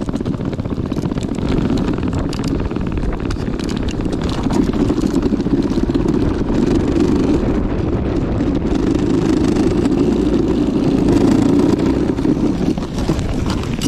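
Homebuilt electric tracked snow bike with twin NPC Black Max motors driving under load while towing a sled. Its motors and tracks make a steady drone that gets louder about four and a half seconds in.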